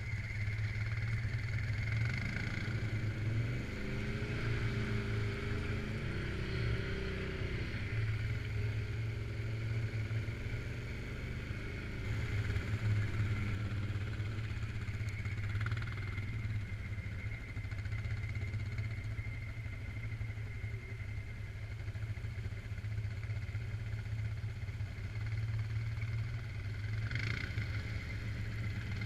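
Suzuki King Quad 750 AXi ATV's single-cylinder engine running steadily under way, with a steady high whine alongside.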